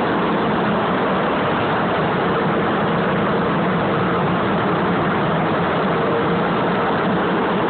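Steady machine noise, an even rushing sound with a low hum in it that neither rises nor falls.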